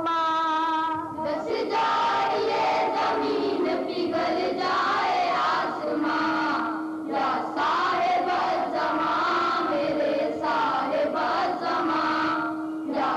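Boys' choir singing a manqabat devotional chorus together in phrases, with a steady held note underneath at times.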